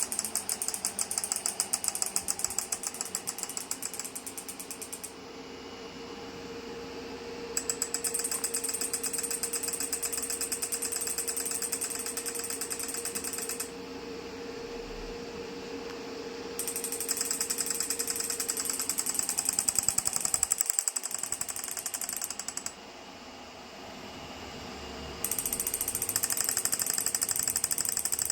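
Magnetic physiotherapy device's treatment handle pulsing: a rapid train of clicks that comes in stretches of several seconds, quieter in the gaps between, over a faint steady hum.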